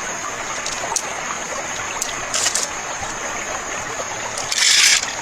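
Steady trickling water, with scattered light clicks, a brief louder hiss about halfway through and a louder burst of hiss near the end.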